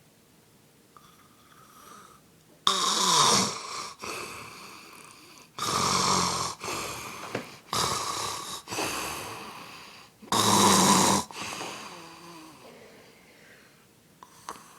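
A sleeping man snoring loudly. After a quiet start, a run of five harsh, rasping snores about a second long each begins about two and a half seconds in, then trails off near the end.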